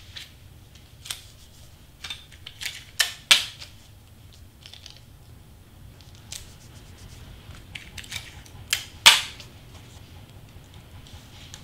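Tape being pulled off and torn from a tape dispenser while cardstock pieces are pressed together at a seam: scattered sharp snaps and rips in two clusters, about two to three seconds in and about eight to nine seconds in, the loudest near the end.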